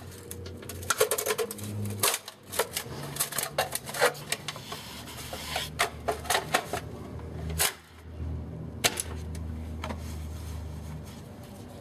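Rapid, irregular clicking and clacking of hard plastic parts as a plastic dryer vent cover and its louvers are handled and fitted, over a faint low hum. The clicks are dense for most of the first seven seconds, with a few more near nine seconds.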